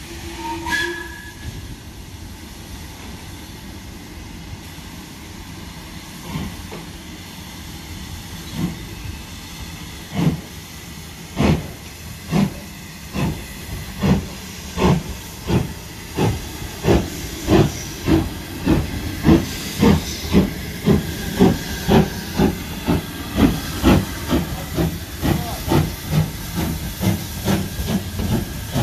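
Steam tank locomotive starting a train: steady steam hiss, a brief whistle about a second in, then exhaust beats that begin slow and quicken to about two a second as it gets under way.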